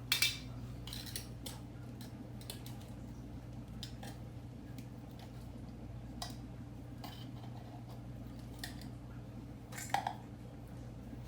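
A utensil scraping and clinking in a dog's food bowl as canned dog food is mixed into her food: scattered light clinks and scrapes, loudest just at the start and again near the end.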